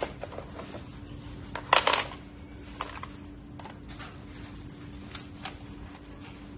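Hard plastic clicks and knocks of a toy pistol and its parts being handled and lifted out of a foam-lined cardboard box, with a short rattling clatter about two seconds in and scattered lighter clicks after.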